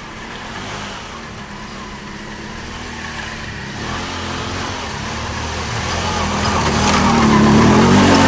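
ATV engines running as the quads drive toward the listener, growing steadily louder and loudest near the end.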